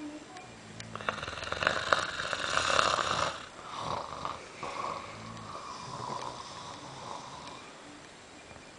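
A drunk man asleep and snoring. Low-pitched snores come every few seconds, with one louder, noisier snore starting about a second in and lasting about two seconds.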